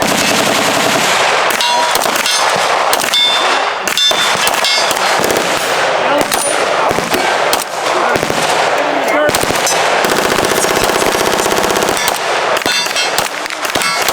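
Heavy gunfire from firearms on a shooting line, with shots overlapping almost without a break. About ten seconds in, a rapid, evenly spaced run of shots marks an automatic burst.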